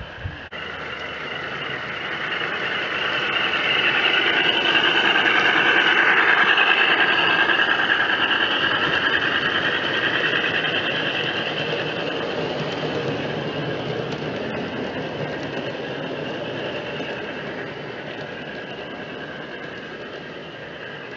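G scale model diesel locomotive and freight cars running on garden railway track: a steady mechanical rolling noise of wheels and motor. It grows loudest as the train passes about six seconds in, then slowly fades as it goes away.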